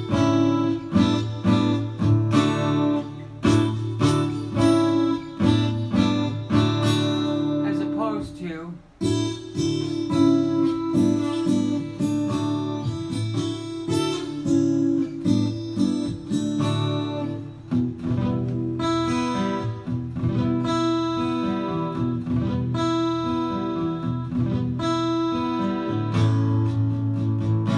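Steel-string acoustic guitar strummed by a hand wearing a thumb pick: a steady run of chords over a bass line, with the chords changing every few strokes.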